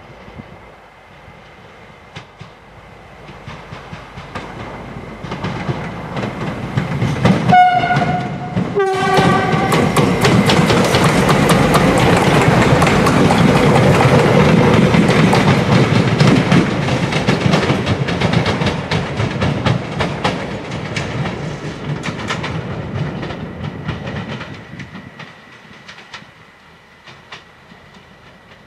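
Stadler FLIRT diesel multiple unit approaching and sounding two short horn blasts about a second apart, the first higher and the second lower. It then passes close, its wheels clicking over the rail joints, and fades away.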